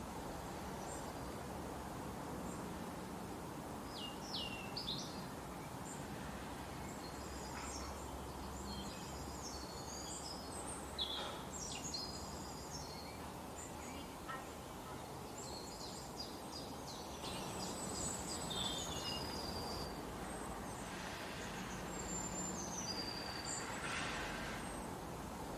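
Forest birds chirping and trilling in short high bursts, in several clusters, over a steady, even background rush of outdoor ambience.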